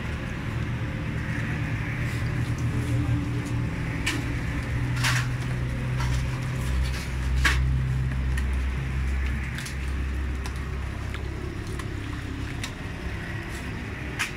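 Low, steady engine rumble, like idling motor traffic, swelling for a few seconds in the middle, with a few sharp clicks.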